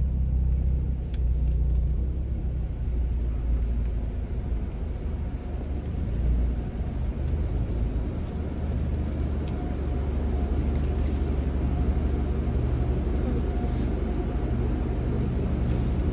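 Steady low rumble of a car's engine and running gear heard from inside the cabin, with a few faint clicks and a faint steady tone in the second half.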